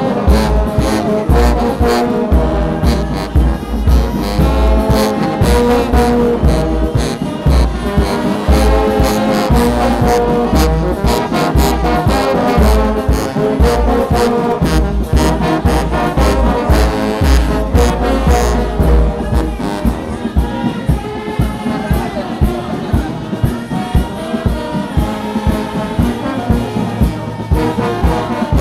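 Brass band playing a march, trombones and trumpets over a steady, evenly repeating drum beat.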